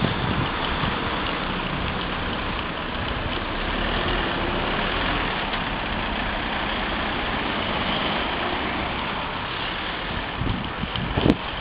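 Steady road traffic and engine noise, with a short sharp click near the end.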